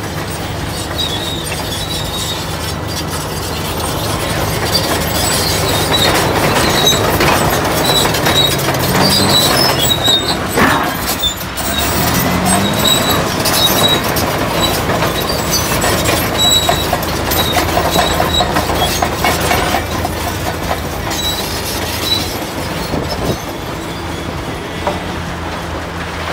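Caterpillar D8 crawler dozer's diesel engine running under load, its steel tracks clanking and squealing high-pitched. It gets louder as it passes close, with the engine pitch rising briefly twice near the middle.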